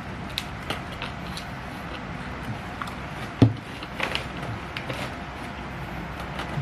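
Close-miked mukbang eating sounds of nasi padang being eaten: scattered mouth clicks and small crackles of chewing, with one louder low thump about halfway, over a steady low background hum.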